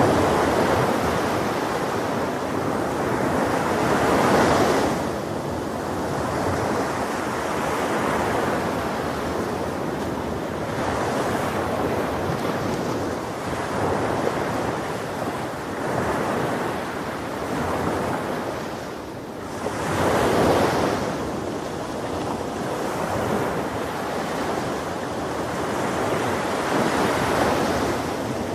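Ocean surf washing onto a beach, waves swelling and breaking every few seconds, with the biggest surges about four seconds in and again near twenty seconds. Some wind on the microphone.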